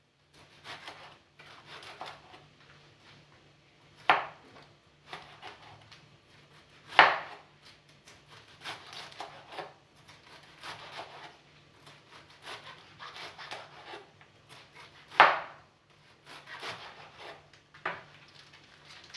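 Knife cutting collard greens (sukuma wiki) on a cutting board: a run of soft slicing strokes, with four sharp knocks of the blade on the board.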